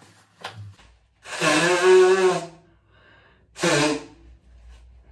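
A girl sneezing twice into a tissue: a long, loud, voiced sneeze about a second in, then a shorter one about two seconds later.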